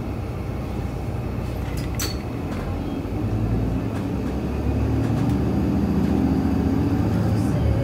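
City bus engine and drivetrain running as the bus drives, heard from inside the cabin, with a steady low hum that grows louder about halfway through. A sharp click or rattle about two seconds in.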